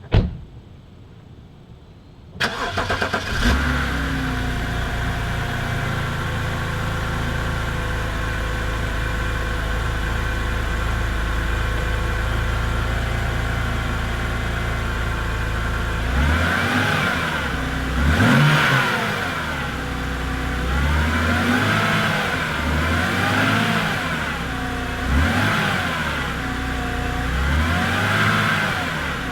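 A BMW N52 straight-six is cold-started: a click, then about two seconds in the starter cranks briefly and the engine catches into a fast cold idle. From about halfway it is revved up and let fall back several times. The start is to check whether the ticking hydraulic lifters have quieted after fresh Molygen oil, an engine flush and a lifter additive.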